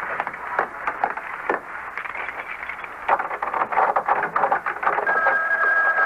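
A run of clicks and knocks, then a telephone starts ringing about five seconds in, a steady ring of two tones lasting about two seconds.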